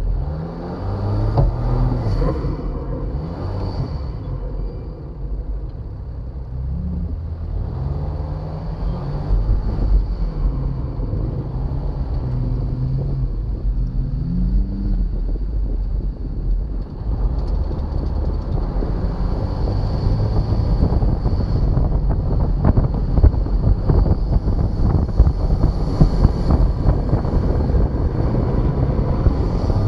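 Jeep Wrangler Rubicon engine revving up and falling back as it climbs and crests sand dunes, heard through a hood-mounted camera with wind rushing over the microphone. In the second half the wind rush grows louder and rougher and covers the engine.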